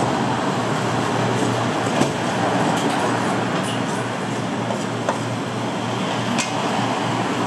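A Chinese cleaver slicing rice sausage on a wooden chopping block, the blade knocking on the wood a few times, over a steady loud rumbling background noise.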